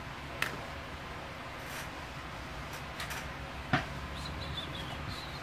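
Steady low background noise with a few light clicks as small phone parts are handled on the workbench; the sharpest click comes near four seconds in.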